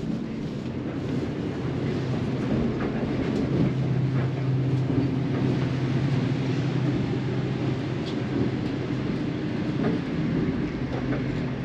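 Running noise inside a moving Beijing–Lhasa passenger train carriage: a steady low rumble and hum, with a few faint clicks.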